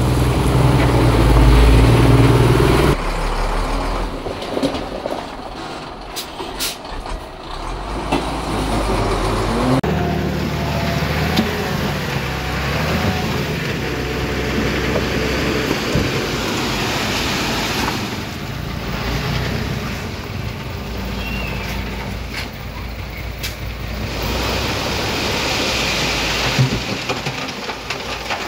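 Diesel engines of heavy construction machinery, dump trucks and a bulldozer, running, in several short clips cut together. The loudest part is a low engine rumble in the first three seconds; the sound changes abruptly at about three and ten seconds, each time to quieter machine noise.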